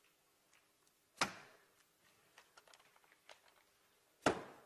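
Two sharp knocks, one about a second in and one near the end, with faint light ticks between them. The last knock is a telephone handset set down on a wooden desk.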